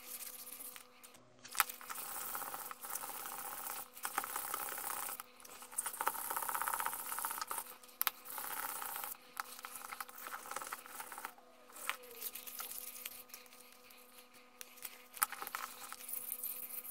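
Sandpaper rubbing back and forth on a carved butternut pen blank, hand-sanding in scratchy stretches of a second or two with short pauses and a few light clicks.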